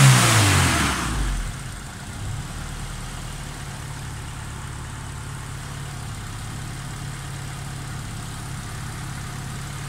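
Honda B20 VTEC four-cylinder DOHC engine settling back from a throttle blip in the first second or so, then idling steadily.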